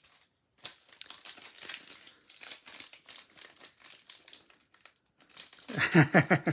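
Foil wrapper of a Bowman Draft trading-card pack crinkling as it is torn open by hand, a run of quick crackles. A voice cuts in briefly and louder near the end.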